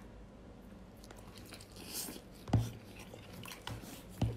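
Close-miked eating sounds: chewing and crackling as chili-coated lobster meat is bitten and pulled from the shell, with two low thumps, about 2.5 s in and near the end.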